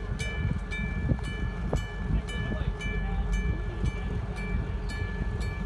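Approaching diesel locomotive with a steady low rumble, and a bell ringing about twice a second.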